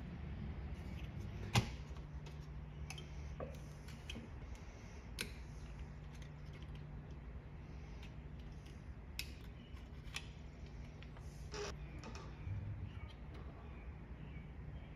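Scattered light clicks and taps of plastic parts as a blower motor's control board is handled and seated on its housing, the sharpest about one and a half seconds in. A steady low hum runs underneath.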